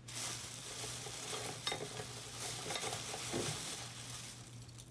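Continuous crackling, crinkling rustle of things being handled, with a few light knocks through the middle, over a steady low hum.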